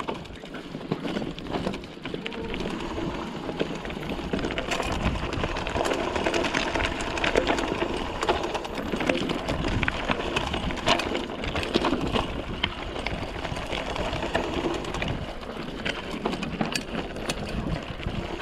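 Mountain bike in motion over a rough track: a steady noise of tyres on the ground, with many sharp rattles and clicks from the bike, and a low rumble that comes and goes.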